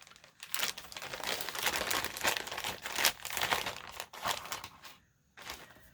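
Crinkling and rustling of a small bag and the papers inside it as they are handled and pulled out, irregular and continuous, with a brief break about five seconds in.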